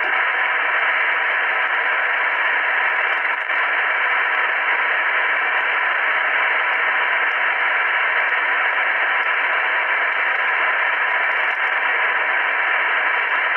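ITT Mackay MSR-5050A shortwave receiver's speaker giving out a steady rushing hiss of static on the 160-meter band, with no voice on the frequency. The hiss holds an even level and is cut off below and above the voice range by the receiver's audio passband.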